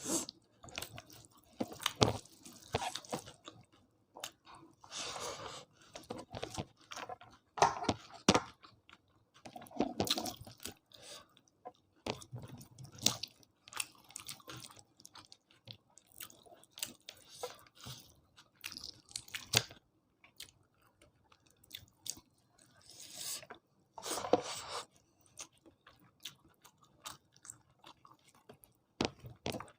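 Close-miked eating: chewing and crunching of food, in irregular bites and mouth noises with short pauses between them.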